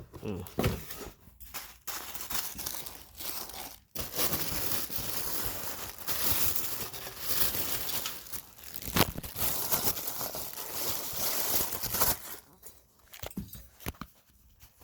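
Ceiling fan packaging being rummaged through by hand: a continuous crinkling and rustling, with a couple of sharp knocks.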